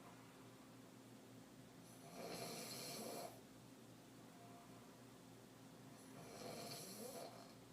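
A woman's deep, open-mouthed throat snoring while asleep on her back: two snores about four seconds apart, each lasting a little over a second, with quiet breathing between.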